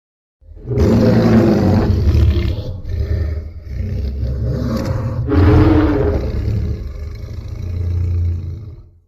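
Vastatosaurus rex creature roar sound effect: one long, deep roar that swells several times, loudest about a second in and again past the middle, then fades out near the end.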